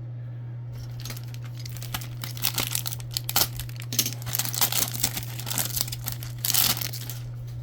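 Plastic wrapper of a trading-card pack crinkling and tearing as the pack is opened, in a run of irregular crackles, over a steady low electrical hum.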